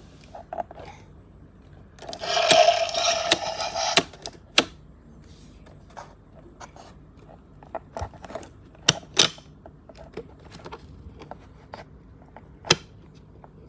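Plastic toy packaging being handled: scattered clicks, taps and scrapes of the clear plastic tray and ties around a boxed dinosaur figure. About two seconds in comes a louder, harsher sound lasting roughly two seconds.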